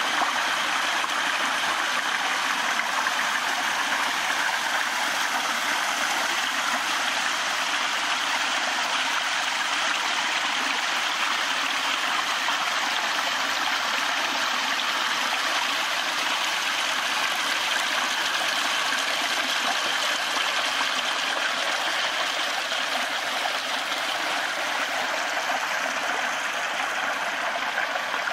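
Small stream of water spilling from a corrugated metal culvert pipe and running over rocks: a steady rushing splash.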